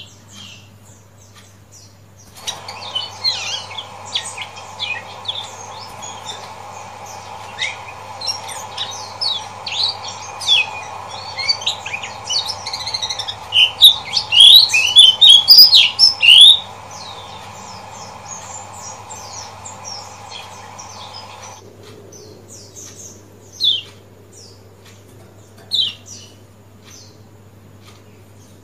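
Kecial kuning white-eye giving sharp 'ciak ciak' chirps. From a couple of seconds in they come thick and fast over a steady background hiss, peaking in a loud rapid run in the middle, then thin out to single sharp chirps a couple of seconds apart. A steady low hum lies under it.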